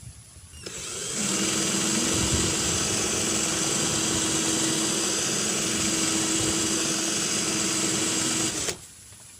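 Electric hand drill running at steady speed for about eight seconds as it bores a hole through a melamine pot, then stopping abruptly near the end.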